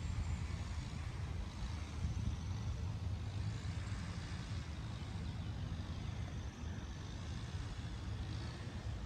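Steady low outdoor background rumble, even throughout, with no distinct knock or strike in it.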